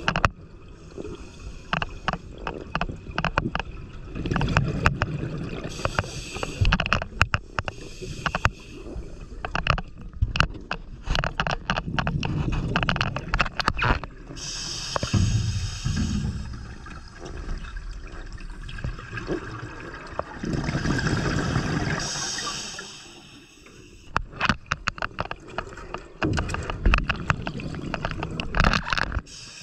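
Scuba diver breathing through a regulator underwater: rumbling gushes of exhaled bubbles every few seconds and hissing inhalations, among many sharp clicks and crackles.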